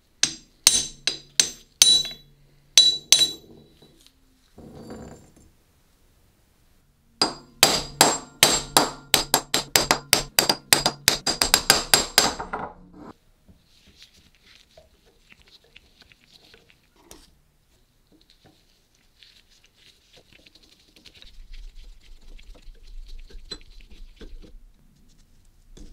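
Metal blows ringing on a rusty cast-iron vise as it is knocked apart: about six sharp strikes, then after a pause a quick run of many strikes lasting about five seconds. Faint scraping follows as a screwdriver works a small rusty screw.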